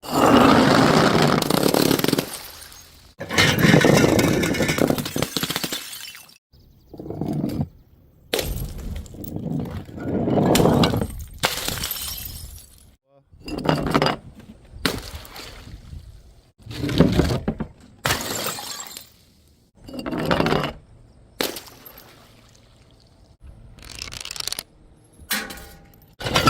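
Glass bottles smashing one after another, a dozen or more separate crashes a second or two apart, each a sharp break trailing off into tinkling shards.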